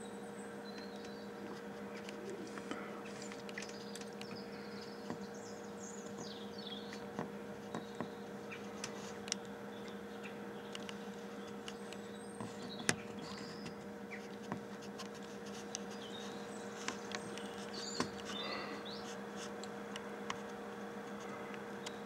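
A steady low hum with scattered small clicks throughout, and faint, short high chirps of small birds calling now and then.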